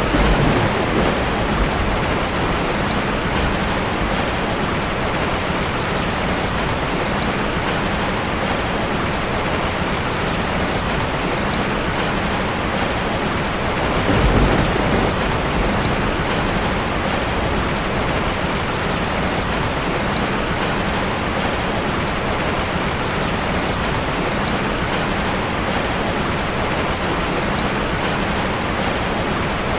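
Steady soft rain falling on leaves, an even dense patter, with a brief low rumble about halfway through.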